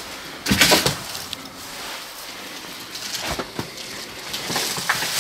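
Crunching and snapping of footsteps over debris, with a louder crunch about half a second in and scattered cracks and clicks after.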